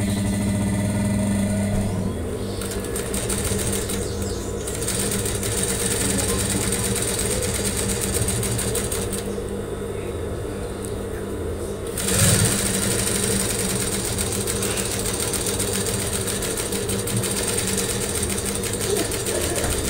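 Electric sewing machine running continuously as it stitches a collar seam, its sound shifting as the speed changes: the high part thins out for a few seconds past the middle and swells again at about twelve seconds.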